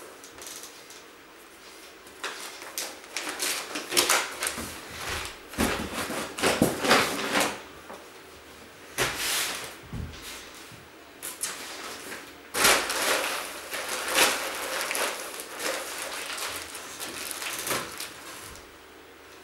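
Rustling and clattering of household belongings being handled and packed away, in several long stretches broken by short pauses, with sharp knocks mixed in.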